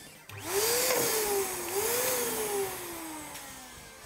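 Air hissing out through the neck of a large white latex link-o-loon balloon as it is let down slightly to soften it, so that it is not too tight. A squealing tone wavers up and down twice, then falls steadily in pitch as the hiss fades.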